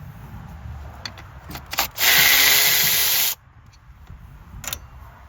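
Cordless 3/8-inch ratchet (Milwaukee M12 Fuel) running for about a second and a half in the middle, spinning out a 10 mm coil pack bolt. A few light clicks and knocks of tool and bolt come before and after.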